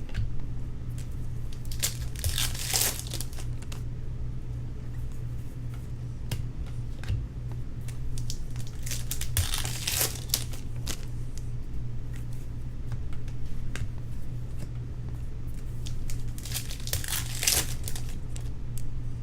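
Baseball card pack wrappers being torn open and crinkled, in three louder rustling spells with light crackling between them, over a steady low electrical hum.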